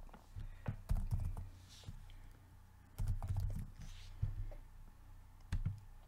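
Typing on a computer keyboard: short bursts of quick keystrokes, then a single separate click near the end.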